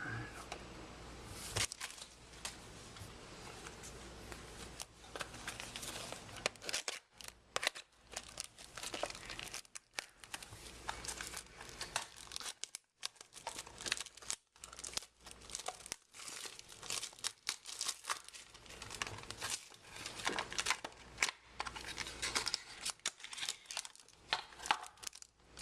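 Plastic-foil trading card pack wrapper being crinkled and torn open by hand: irregular crackling and rustling, with brief gaps.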